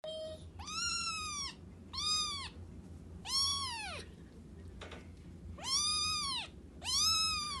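A cat meowing five times, each call rising and then falling in pitch, over a steady low hum.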